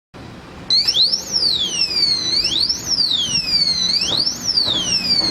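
Komine LK-124 alarm wire helmet lock's alarm going off, starting under a second in: a loud, high electronic siren sweeping up and down, about one rise and fall every one and a half seconds.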